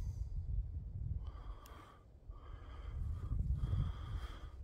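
Heavy breathing close to the microphone: about three breaths, each under a second, over a continual low rumble.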